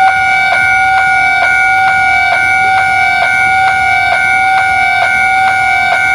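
Japanese railway level crossing warning bell ringing: a loud electronic bell tone struck over and over at an even pace, a little over twice a second, warning that a train is approaching.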